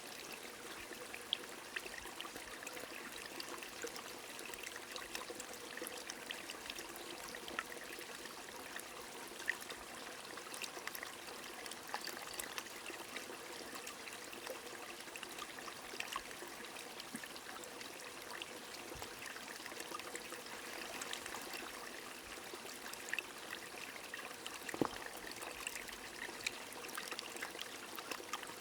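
Small stream trickling steadily under light rain, with scattered drips and drops pattering throughout.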